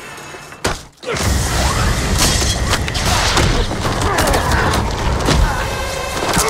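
Film sound mix of a bar brawl: a sharp hit just under a second in, then a loud, dense run of booming impacts and crashes over music.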